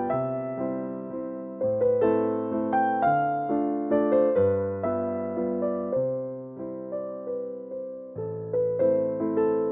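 Background music: a soft electric piano playing slow chords and a simple melody, each note struck and then fading.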